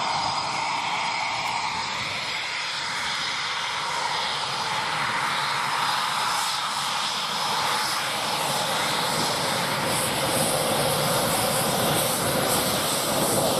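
Eurofighter Typhoon's twin EJ200 turbofan engines running: a steady rushing jet noise with a high whine, growing louder near the end as the jet moves along the runway.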